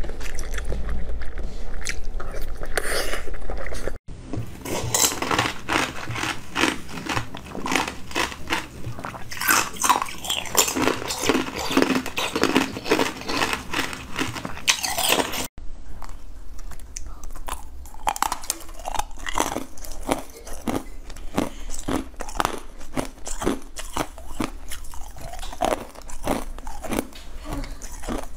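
Close-miked eating sounds: soft jelly being bitten and sucked, then small frozen pieces bitten and chewed with many sharp, crisp crunches. There are abrupt changes about 4 and 15 seconds in.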